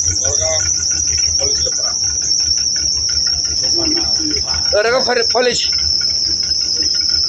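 Insects shrilling in a steady, high-pitched, fast-pulsing drone, with faint voices in the background around the middle.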